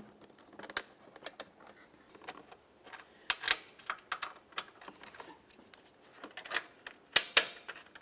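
Plastic wiring-harness clips and connectors being pressed and snapped into place by hand, with rustling of the wiring between them. The clicks are light and irregular; the sharpest come about three and a half seconds in and again around seven seconds in.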